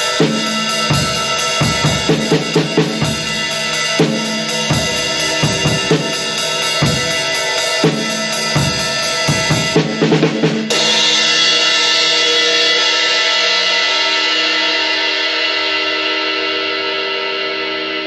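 Drum kit groove with the Paiste Alpha 20-inch Power Ride played in an even pattern over bass drum and snare. About ten seconds in a quick fill ends on a loud cymbal hit that rings on and slowly dies away.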